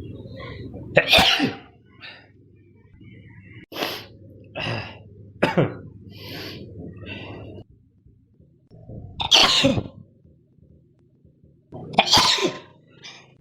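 A person sneezing several times: sharp, loud sneezes a few seconds apart, with smaller breathy sounds between them.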